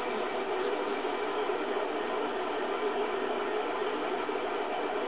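Stepper motors of an H-bot 3D printer running a dry test, driving the print head carriage across the gantry: steady faint tones over an even hiss.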